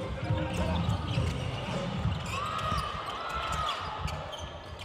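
A basketball being dribbled on a hardwood court, with sneakers squeaking sharply on the floor about halfway through as players drive to the basket.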